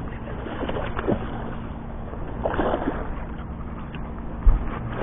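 Hooked black bass thrashing and splashing at the water's surface beside the boat, in bursts about a second in and again around two and a half seconds, over a steady low hum. A short low thump near the end is the loudest moment.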